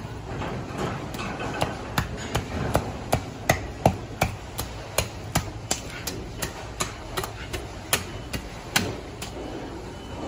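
A long filleting knife ticking against a longtooth grouper's rib bones as it cuts the fillet away from the ribs. The ticks are sharp and evenly spaced, about three a second, beginning about a second in and stopping near the end.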